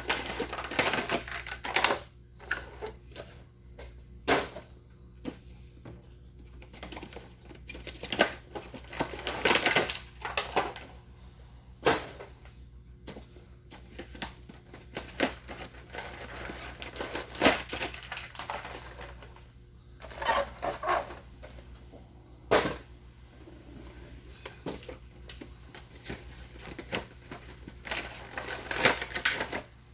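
Action-figure packaging being opened and handled: plastic trays and wrappers pulled apart, giving irregular clicks, snaps and crinkling rustles.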